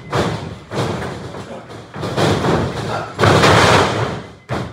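Wrestlers' bodies hitting the canvas of a wrestling ring: several heavy thuds with a ringing tail, the loudest and longest about three seconds in.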